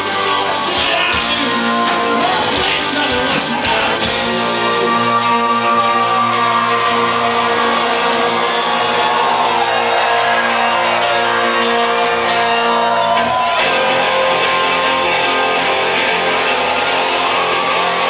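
Live rock band playing, with electric guitars, bass, drums and keyboard, heard from the crowd in a club. The band moves into a new section about thirteen seconds in.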